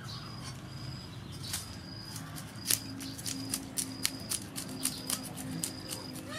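A knife blade scraping scales off a large whole fish on a wooden chopping board: a series of short, crisp scraping strokes, about three a second from a little before halfway through. A short high chirp repeats in the background.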